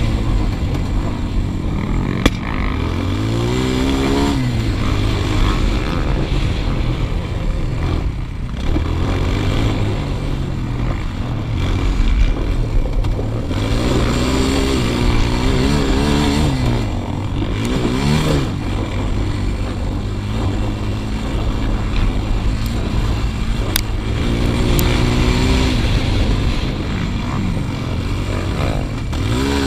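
2008 Suzuki LTZ 250 quad's single-cylinder four-stroke engine under hard riding, its revs climbing and falling again and again as it accelerates, shifts and backs off. A couple of sharp knocks come through.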